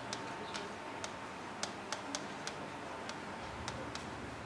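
Stylus tip tapping and clicking against an interactive display's screen while a formula is written by hand: about a dozen short, sharp clicks at an irregular pace.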